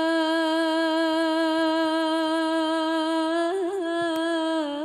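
A woman's solo voice singing one long held note of a sholawat melody, with a short wavering ornament about three and a half seconds in before settling back on the note.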